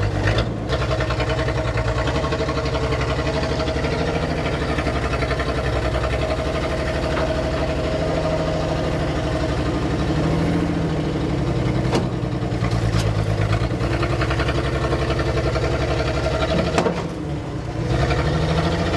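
Cummins-swapped diesel engine in a 1972 Ford F100 4x4 pulling in low gear off-road, its clatter steady and the revs rising and falling twice. The engine is short on RPM, so throttle and clutch are worked hard. A couple of sharp knocks, about twelve and seventeen seconds in, come from the truck striking the trail.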